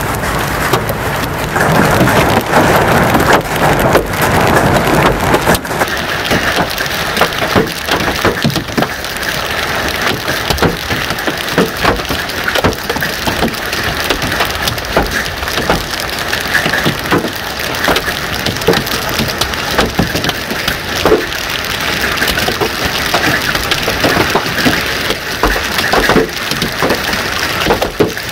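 Heavy rain with large hailstones falling, a steady rush of rain broken by a dense clatter of sharp separate hailstone impacts. The impacts come thickest from about six seconds in.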